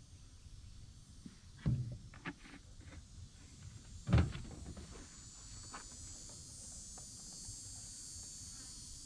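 Scattered knocks and clicks from handling a chainsaw and its fuel can while topping off the tank, with a heavy thud about four seconds in. A steady high insect buzz fills the background, growing stronger in the second half.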